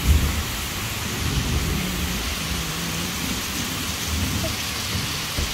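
Steady rain falling on the trees and ground, with a low rumble of thunder that is strongest about the first second.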